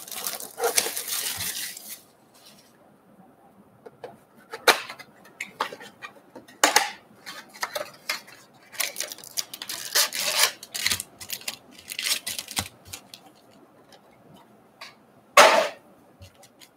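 Cardboard trading-card box being opened and its foil-wrapped card packs handled and stacked: a string of brief rustles, crinkles and light taps, the loudest crinkle about fifteen seconds in.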